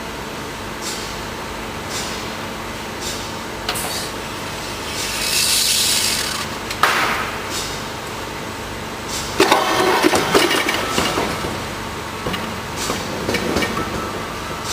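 Fridge-degassing machine at work: a steady hum with faint clicks about once a second, a hiss about five seconds in, a sharp knock near seven seconds, then clattering and scraping.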